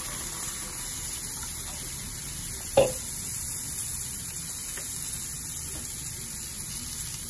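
Steady sizzling hiss of food cooking in pans on a gas stove, with one sharp knock a little under three seconds in.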